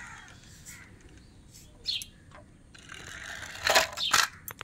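Handling noise from the toys and the phone: scattered light clicks and taps, then two sharp knocks about half a second apart near the end.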